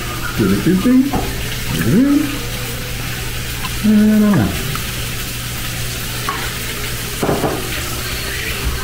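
Pork chicharrones sizzling as they fry in their own fat in a pan. A few short voice sounds break in, the longest a held hum about four seconds in that drops in pitch at the end.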